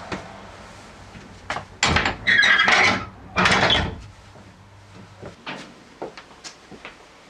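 A ship's cabin door being opened and shut: a loud clatter, a rough squeaky scrape, then another loud clatter, followed by lighter taps and knocks.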